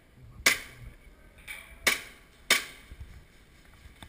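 Airsoft gun firing single shots: three sharp cracks, the first about half a second in, then two more close together around the two-second mark.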